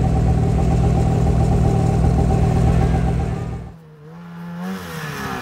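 Snowmobile engine running at a steady pitch. About three-and-a-half seconds in it drops away, and a quieter snowmobile engine revs up and back down.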